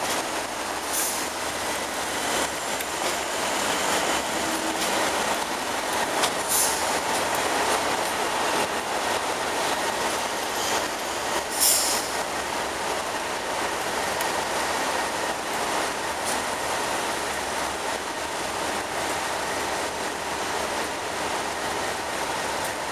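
Class 37 diesel locomotives' English Electric V12 engines running steadily as the pair moves slowly along the platform. There are a few brief high squeals from the wheels, about a second in, around six seconds in and once more near the middle.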